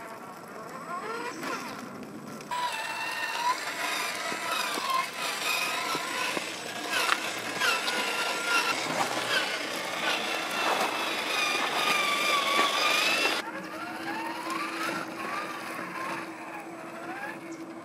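A 1/8-scale RC crawler's electric motor and geared drivetrain whining as it crawls over rock. The pitch rises and falls with the throttle. The sound jumps louder about two and a half seconds in and drops back about thirteen seconds in.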